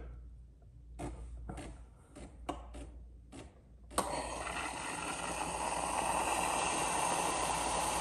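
Philips Saeco Xelsis SM7685 espresso machine rinsing its milk carafe: a few light clicks, then about halfway in steam bursts out with a steady hiss that grows louder. The steam is being blown through the milk spout and everywhere milk touched, into the drip tray, to clean it.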